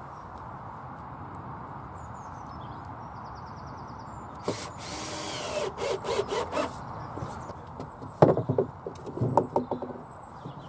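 Cordless drill driving a screw into timber in one short burst with a rising whine about four and a half seconds in, followed by clattering wooden knocks as timber battens are handled and laid down, the loudest a sharp knock about eight seconds in.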